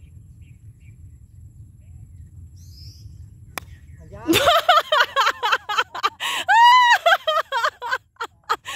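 Golf club striking a ball off the tee: one sharp crack about three and a half seconds in, over a faint low rumble and a couple of faint bird chirps. Right after it, a loud high-pitched voice with long held notes that rise and fall takes over for the rest.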